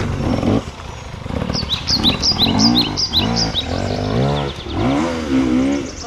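Dirt bike engines revving in short bursts, the pitch rising and falling with each blip of the throttle, after a brief lull about a second in. A bird sings a run of quick high chirps over the engines about two seconds in.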